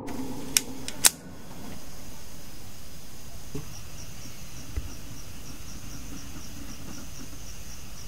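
Two sharp clicks about half a second apart as a handgun is handled and cocked. Then a steady background with crickets chirping in a fast, even rhythm.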